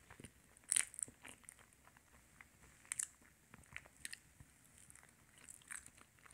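A banana being peeled by hand: faint tearing of the peel with scattered small clicks and crackles, the sharpest near the start and about three seconds in.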